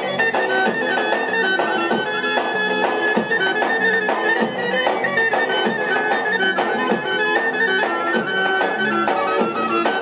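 Albanian folk dance music: a sustained wind-instrument melody over a steady drum beat.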